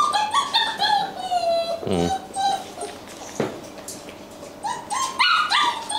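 Rottweiler puppies whining and whimpering: runs of short, high cries that step upward in pitch at the start and again about five seconds in, with a quieter spell in between.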